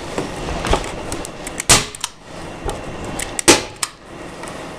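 Manual staple gun firing staples through automotive carpet into a table, a few sharp snaps with the two loudest a little under two seconds apart and lighter clicks around them.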